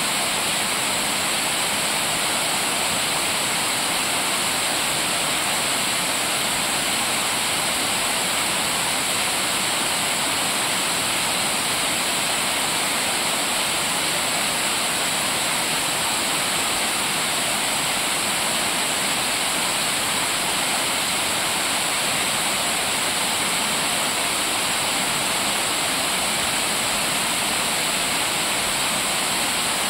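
A small river waterfall pouring steadily, a constant even rush of falling water.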